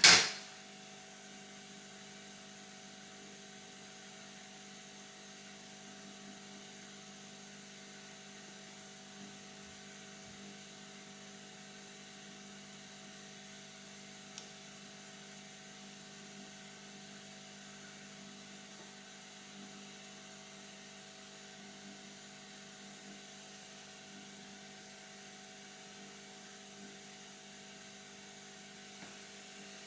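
Steady electrical hum and whir from running repair-bench equipment, holding several fixed tones with a faint high whine over them. A sharp click right at the start.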